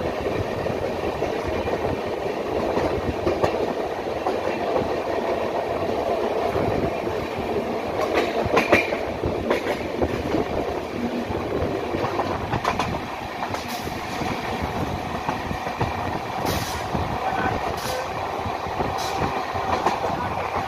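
Running noise of an LHB passenger coach at speed: a steady rumble of wheels on rail with rushing air, broken by sharp clicks as the wheels cross rail joints and points, several of them between about 8 and 19 seconds in.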